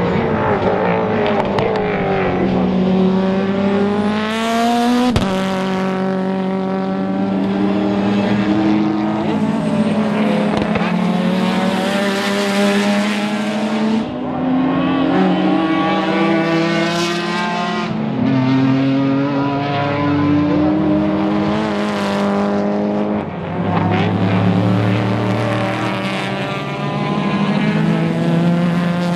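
Race car engine at full throttle, its pitch climbing steadily and then dropping sharply at each upshift, about four times, after falling away in the opening seconds.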